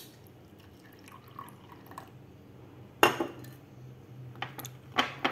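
Brewed coffee poured in a thin stream from a glass server into a drinking glass. About three seconds in comes a sharp glass clink, with the server set back on the table, then a few light taps of glass being handled.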